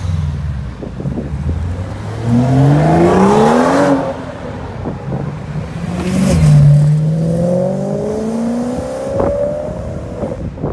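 Performance cars, among them a Stage 1 tuned BMW M235i, accelerating hard away one after another. The engine revs climb steeply twice, each run breaking off at a gear change, with a few sharp exhaust pops near the end.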